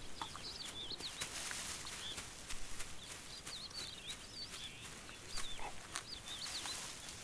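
Small birds chirping and twittering faintly, short wavering high whistles coming every second or so, with soft scattered ticks underneath.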